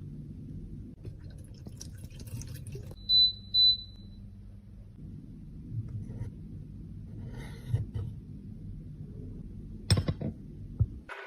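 Two short high-pitched electronic beeps about half a second apart, over a low steady hum with light clicks and handling noises, and a sharp click near the end.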